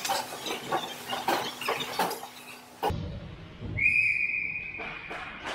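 Referee's whistle blown once in an ice hockey game: a single steady high tone lasting about a second, a little over halfway through. Before it comes a stretch of rapid clicks and knocks.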